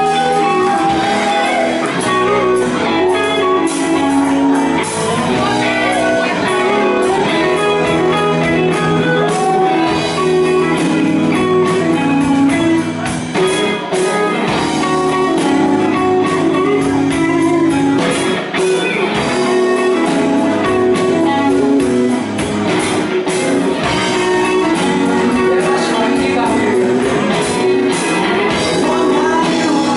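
Live rock band playing electric guitars, bass guitar and drums, loud and continuous.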